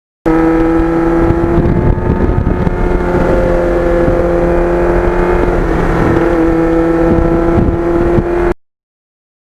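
Kawasaki GPX750R's inline-four engine running at a steady cruising speed, its pitch dipping slightly about six seconds in, with wind buffeting the microphone. The sound starts and cuts off abruptly.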